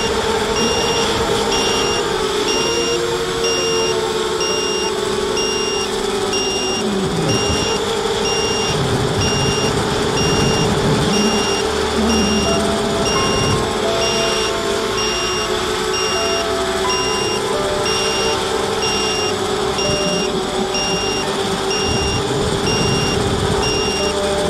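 ZMR250 FPV quadcopter's brushless motors and 5x4 props whining steadily, the pitch wavering with throttle, over a rumble of air on the microphone. A short high electronic beep repeats about twice a second throughout.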